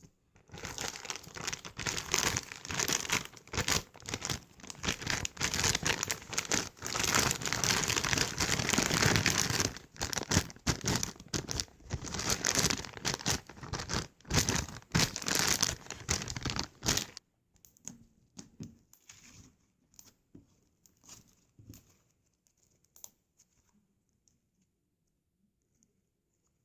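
Slime being squeezed and stretched by hand, giving a dense run of small pops and clicks that stops abruptly about 17 seconds in, followed by a few faint, scattered clicks.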